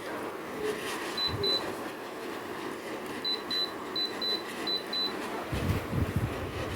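Short high electronic beeps in quick pairs, four pairs in all, typical of an LG split air conditioner's indoor unit acknowledging remote-control button presses, over a steady hum. A low rumble comes in near the end.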